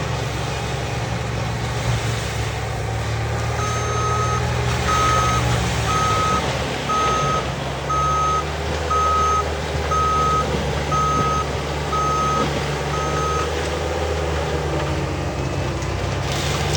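Compact track loader's diesel engine running steadily while its backup alarm sounds about ten evenly spaced beeps, roughly one a second, from a few seconds in until near the end: the machine is reversing.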